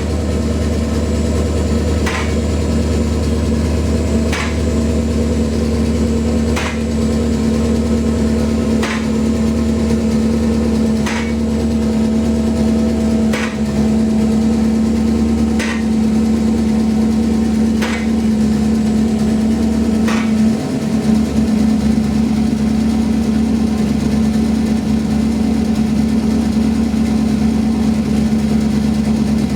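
Corvette's 427 V8 running steadily with new plugs, wires and coils and freshly sealed cat-back exhaust gaskets. A sharp tick comes about every two seconds, nine in all, and stops about two-thirds of the way through.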